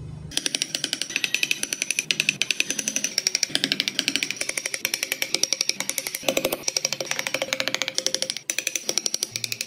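A woodworking power tool cutting wood with a fast, even rattle of several strokes a second and a faint steady whine, the rattle dipping briefly near the end.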